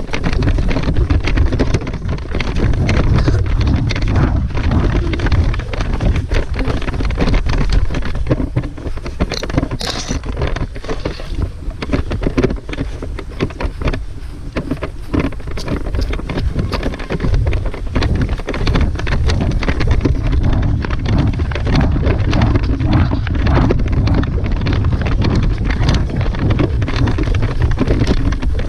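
Wind rumbling over the microphone of a handheld camera, with frequent knocks and rustles from handling it.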